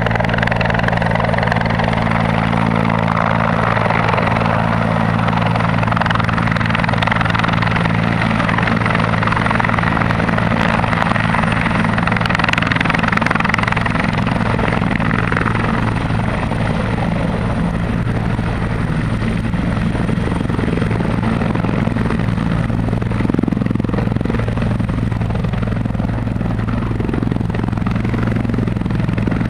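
Full-size turbine helicopter hovering low, its main rotor and engines running steadily, with a thin high turbine whine over the rotor noise.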